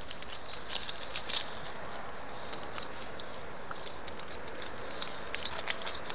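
Light, irregular clicks and crackles from a pug puppy, over a steady faint hiss.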